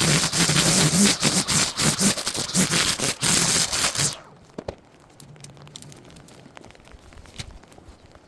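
Heavy rain falling, crackling and pattering on a surface close to the microphone. It cuts off abruptly about four seconds in, leaving faint scattered ticks.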